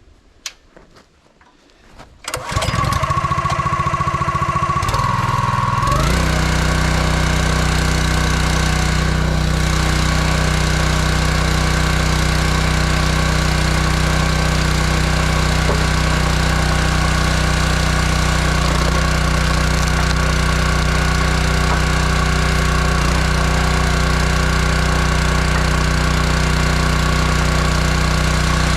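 Honda small four-stroke engine on a hydraulic log splitter being started: it fires about two seconds in, runs unevenly for a few seconds, then settles at about six seconds into steady running at constant speed.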